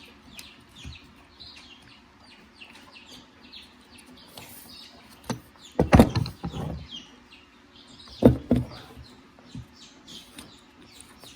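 Small birds chirping continually in the background, with a few sharp knocks about five to six seconds in and again about eight seconds in; the knocks are the loudest sounds.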